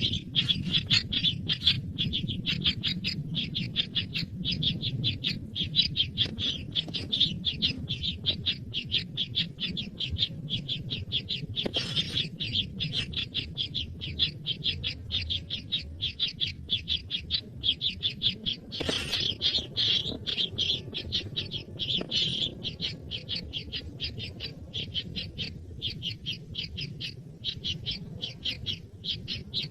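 Baby bird calling with a steady run of short, high chirps, about three or four a second, and a couple of harsher, louder calls along the way.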